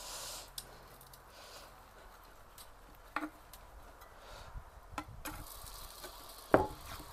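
A metal spatula cutting into a potato bake and knocking against the metal baking pan: a few scattered clicks and scrapes, the loudest near the end.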